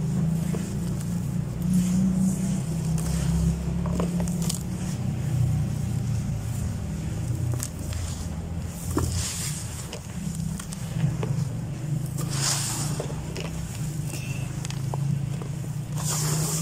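Hands raking and crumbling dry dirt in a plastic tub: gritty rustling with small ticks of falling grains, and louder hissing swishes of sand about nine, twelve and sixteen seconds in. A steady low rumble runs underneath and is the loudest part of the sound.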